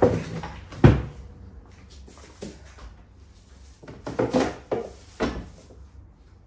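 Under-sink cupboard door and the small plastic bin hung on it being handled and shut: a series of knocks and clatters, the loudest about a second in, with a second cluster of knocks around four to five seconds in.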